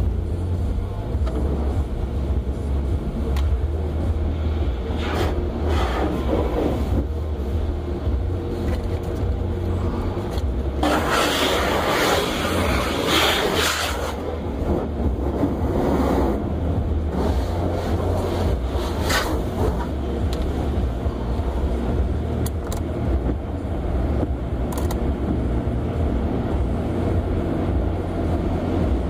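Automatic tunnel car wash heard from inside the car: water spray and soft-cloth brushes and curtains sweeping over the body and windshield, over a steady low rumble. The spraying comes in surges, loudest around the middle.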